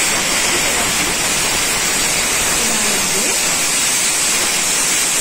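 Potato and cauliflower sizzling in hot oil in a frying pan: a steady, even hiss.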